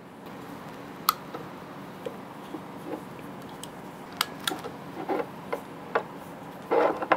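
Scattered light clicks and small knocks from the arm locks and joints of a DJI Ronin SC gimbal, as the locks are released and the arms are swung into position. They sound over a steady low background hiss.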